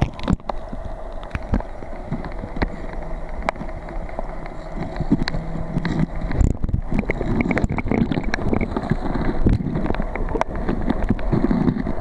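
Stream water flowing over a gravel and cobble bed, heard with the microphone underwater: a steady rushing wash with scattered sharp clicks and taps throughout.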